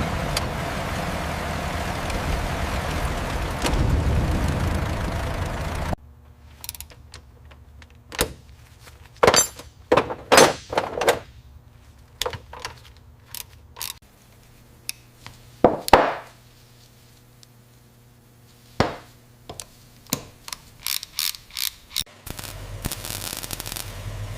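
A steady rushing noise for about six seconds, then it cuts off. Scattered sharp clicks and knocks of hand tools on metal follow, loudest about ten and sixteen seconds in, and a rushing noise comes back near the end.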